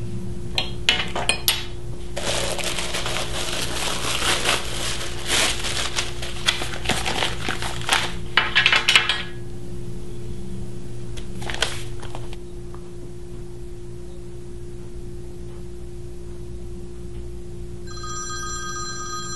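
Newspaper being pulled out of its plastic bag and unfolded: several seconds of crackling paper-and-plastic rustling. Near the end a telephone starts ringing.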